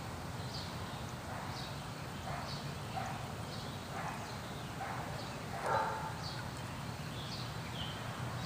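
A small bird chirping repeatedly in short, high, falling chirps, over a low steady hum, with one louder call about six seconds in.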